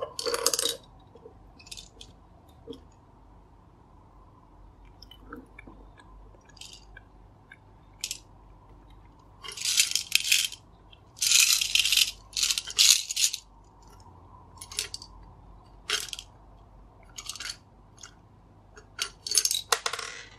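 Small round hard candies rattling and clicking against the plastic inside a toy Minion candy dispenser as it is turned and tipped by hand, with scattered single clicks and a few longer rattling bursts.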